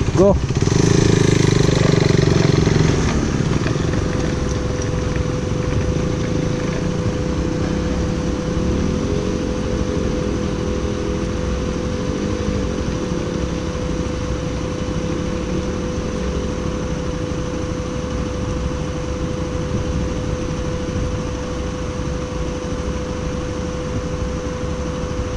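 Motorcycle engine running steadily under riding noise, its pitch rising and falling a couple of times near the middle as the rider works the throttle over rough ground. A steady thin hum runs under it throughout.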